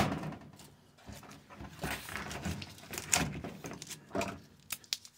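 Painter's tape and wrapping being pulled off a taped-up screwdriver: irregular scraping and rustling, with a few sharp clicks near the end as the tool is handled.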